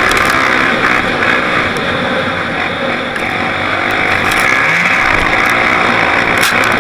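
Quad bike (ATV) engine running hard at speed, heard from onboard the riding quad, its pitch rising and falling as the throttle is worked, easing slightly about three seconds in.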